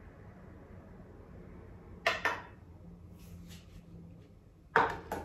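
Metal saucepan and metal caramel moulds knocking against each other and the counter as hot caramel is poured and swirled into the moulds: two pairs of short clinks, one about two seconds in and one near the end.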